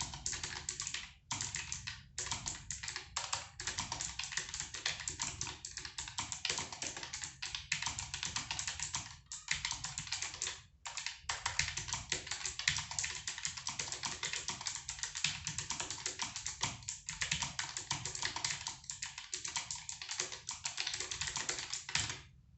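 Keychron K1 low-profile mechanical keyboard being typed on quickly: a dense, continuous patter of key clicks with a few short pauses, stopping shortly before the end.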